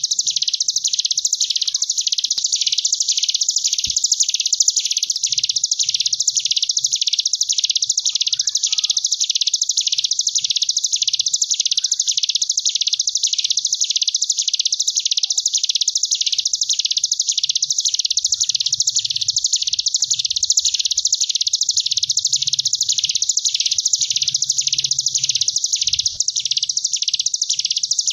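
Ciblek gunung (a prinia) singing its 'ngebren' song: one long unbroken, high-pitched buzzing trill that swells and dips in bee-like waves a little more than once a second.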